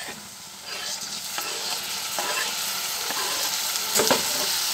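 Hot oil sizzling in an aluminium pressure cooker as wet chopped tomatoes drop onto fried onion, ginger and garlic. The sizzle swells about a second in, with a few light clicks of utensils against the pot.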